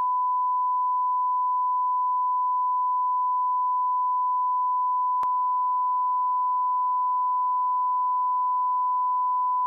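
Broadcast line-up reference tone: a steady, unwavering 1 kHz sine tone played with colour bars at the head of a programme tape, with one faint click about halfway through.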